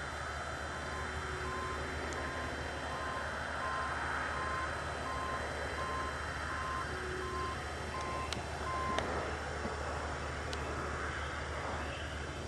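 Steady drone of John Deere combines running in the field, with a machine's backup alarm beeping at an even pace, a bit faster than once a second. The beeping stops about nine seconds in.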